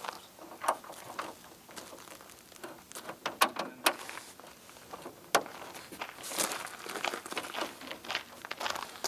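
Hands working at a car's trunk lid and rear wing: scattered small clicks, knocks and rustles, with one sharper click about five seconds in.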